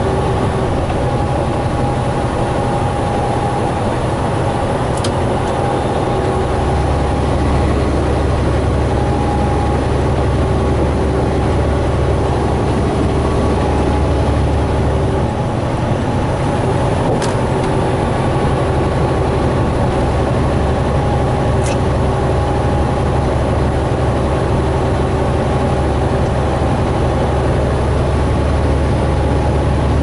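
Semi-truck cab interior at highway speed: the diesel engine drones steadily under an even haze of road and wind noise. Three brief sharp clicks from the cab come about 5, 17 and 22 seconds in.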